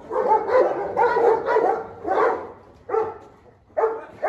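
Large mastiff-type dog barking repeatedly and aggressively, about a bark every half second, while lunging on its leash at other dogs in the kennels.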